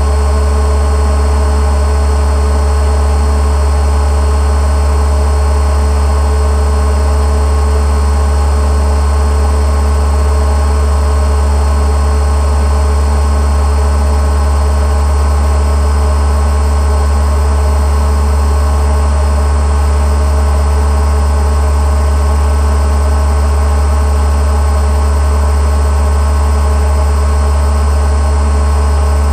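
Boat motor running at a constant speed, a loud, unchanging drone with a deep rumble and steady higher tones.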